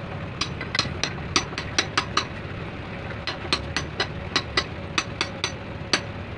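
Hammer blows on a steel punch set against the rim of a starter solenoid's metal housing: sharp ringing metal-on-metal taps about three a second, pausing briefly near the middle. A steady low engine hum runs underneath.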